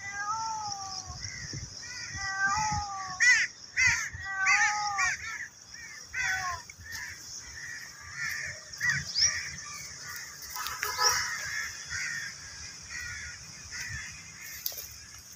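Crows cawing over and over, many short calls close together in the first seven seconds and then fewer and fainter. A steady high insect drone runs underneath.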